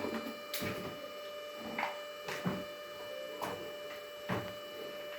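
Handling noises, about five short knocks and rustles spaced roughly a second apart, over a steady electrical hum.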